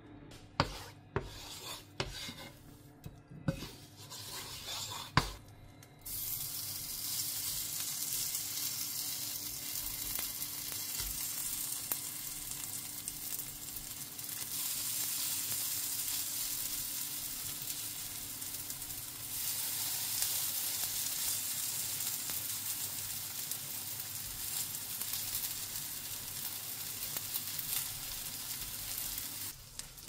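Potato and onion galette batter frying in olive oil in a pan. A few light knocks and clicks come first, then a steady sizzle starts suddenly about six seconds in and stops just before the end.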